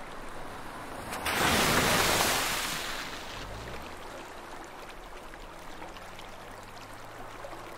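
Water splashing and rushing as an SUV drives through a river ford, swelling loudly about a second in, then settling to a steadier, quieter rush with a faint low hum.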